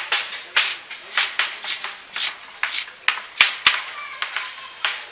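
Green onion leaves being sliced against a curved boti blade: a steady run of crisp cutting strokes, about two to three a second, with two sharper clicks about three and a half seconds in.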